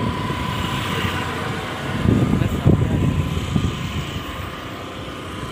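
Motorcycle or scooter being ridden along a road, heard from on board: engine and riding noise as a steady low rumble that swells and eases, with a thin steady whine through the first few seconds.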